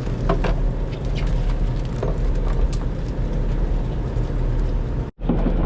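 Fishing boat's engine running with a steady low drone, with scattered short knocks and clicks over it. The sound cuts out for an instant near the end.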